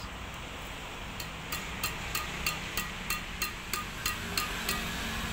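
Freshly strung Li-Ning 3D Calibar X Drive badminton racket, Li-Ning AP6 string at 30 lbs, its string bed tapped over and over. From about a second in there is a steady run of short, ringing pings, about three a second: the sound of the strings at tension.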